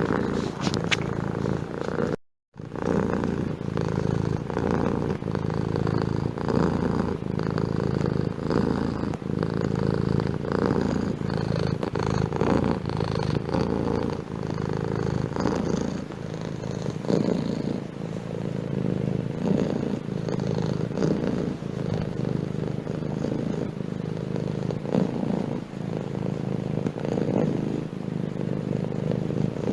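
Domestic cat purring steadily, close up, with a brief cut to silence about two seconds in.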